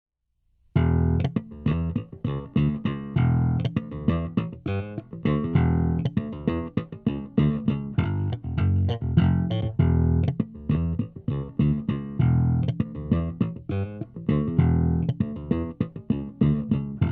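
Electric bass guitar played through an SWR Working Pro bass amplifier as an audio example of its Wedge EQ, a tone circuit that makes up for acoustics lost through cabinet floor contact and a redirected tweeter. A busy line of quick plucked notes starts just under a second in and keeps going.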